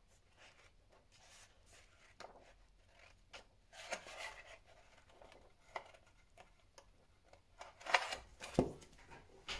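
Pages of a thick paperback book turned and flipped by hand: paper rustling and swishing, loudest around four and eight seconds in, with a soft thump near the end.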